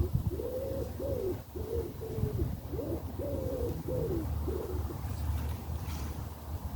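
A bird giving a run of about eight short, low cooing notes in quick succession, with a low rumble underneath.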